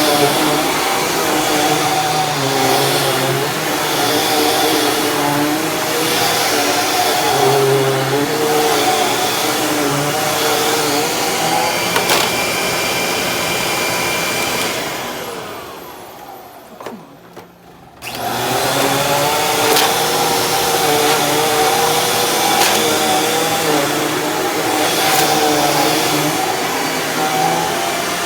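Dirt Devil Ultra Vision Turbo vacuum cleaner running on carpet, its motor whine wavering as it is pushed back and forth. About halfway through the motor is cut off and winds down, then starts again abruptly a couple of seconds later.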